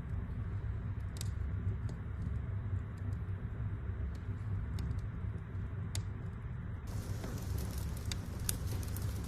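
Wood burning in a fireplace, crackling: scattered sharp pops over a steady low-pitched noise, with the pops coming more often in the last couple of seconds.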